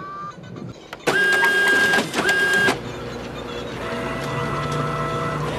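Battery-powered toy vehicles: two loud electronic horn tones about a second in, the first longer than the second, over a small motor whirring, which then runs on as a steadier hum.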